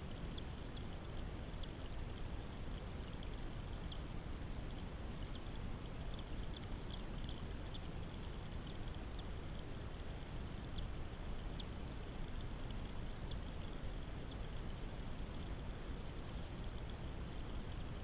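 Small rock waterfall trickling and splashing in a steady rush, with a faint high trill that comes and goes and scattered high ticks.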